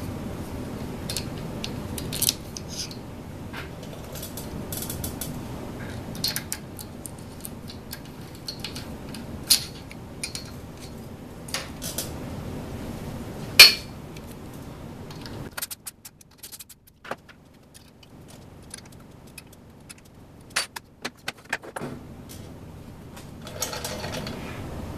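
Scattered sharp clicks and metallic clinks of steel parts and hand tools being handled while a ball-screw mounting plate is fitted to an aluminium extrusion frame, with one loud knock a little past halfway. A low steady background noise drops away soon after.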